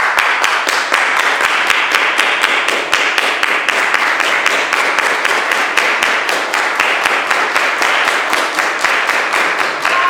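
A large audience clapping hands in a steady, fast rhythm, about five claps a second, with sections clapping different parts of a drum rhythm layered together.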